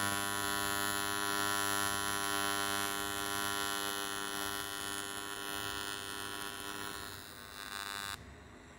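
AC TIG welding arc on aluminum, a steady electrical buzz with many even tones, fading over the last few seconds and cutting off about eight seconds in as the arc is extinguished.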